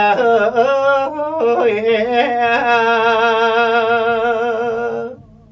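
A man singing a long, drawn-out melismatic phrase in the Thai lae style, his voice sliding between notes and then holding one note with a wide, even vibrato that stops about five seconds in.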